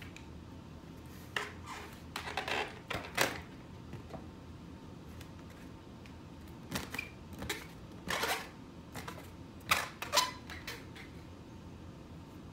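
Inflated long latex balloon rubbed and squeezed in the hands, squeaking in a handful of short, irregular bursts, the loudest about ten seconds in.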